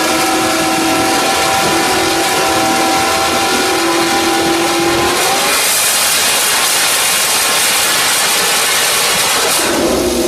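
MotoGP racing motorcycle engine and exhaust running loudly at steady revs. About five seconds in, the engine's tone gives way to a loud rushing noise.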